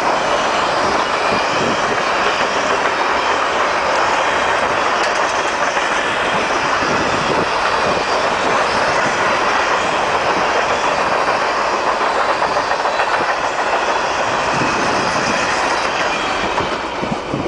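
Empty covered grain hopper cars of a freight train passing at about 45 mph: steady rumble and clatter of steel wheels on the rails. It eases off near the end as the last car goes by.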